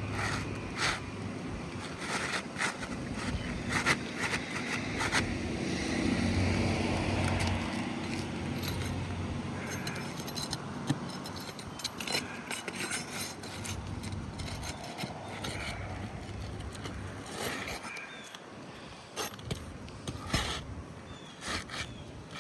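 Asphalt roof shingles scraping and clicking as one is slid back under the course above and handled with tools, in irregular bursts. A low steady hum runs underneath and stops about three-quarters of the way through.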